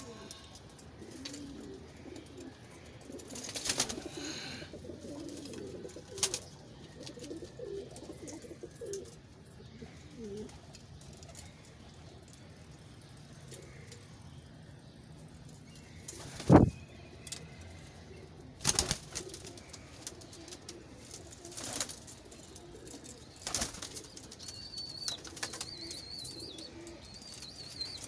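Domestic pigeons cooing low in a loft, with several sudden thumps, the loudest about two-thirds of the way through. A high twittering call from another bird comes in near the end.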